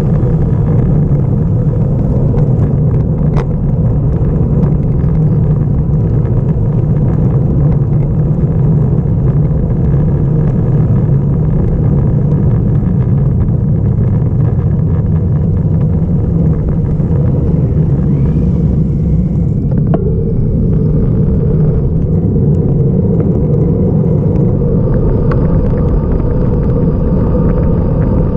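Wind buffeting the microphone of a GoPro carried on a road bike during a fast mountain descent: a loud, steady low rumble.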